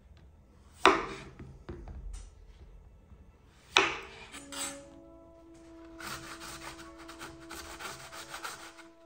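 A vegetable being grated on a grater: fast, rasping strokes that start about six seconds in and keep on, after two sharp knocks.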